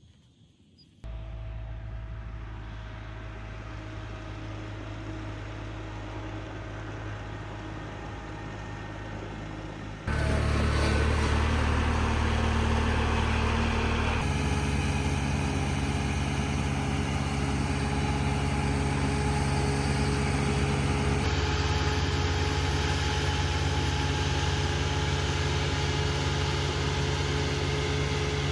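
Engine-driven farm machinery running steadily with a low hum. It starts abruptly about a second in, turns much louder about ten seconds in, and changes its tone abruptly twice more.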